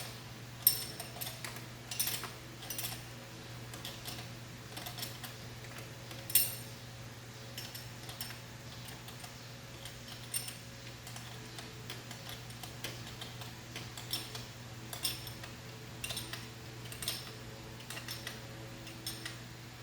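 Scattered light metallic clicks and clinks of a wrench and hardware being worked while tightening down a carburetor's fittings, the sharpest clicks about a second in and around six seconds in. A low steady hum runs beneath.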